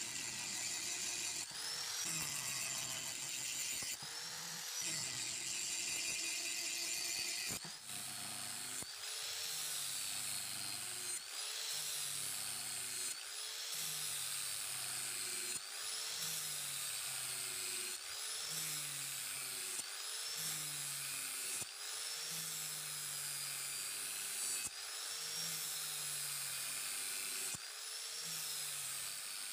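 Handheld electric angle grinder with an abrasive disc grinding a steel knife blade, its motor whining steadily. From about eight seconds in, the motor's pitch dips and recovers about every two seconds as the disc is worked along the blade under load.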